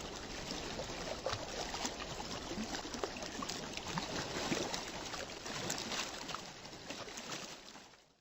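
Ocean waves washing onto a beach: a steady wash of surf with small fizzing crackles, fading out near the end.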